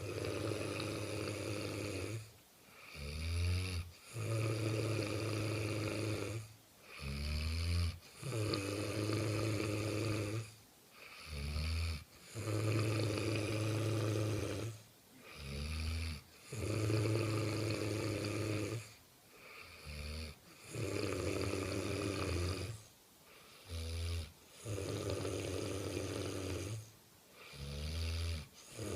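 Heavy snoring from a sleeper, about one breath every four seconds, each a long snore followed by a shorter one.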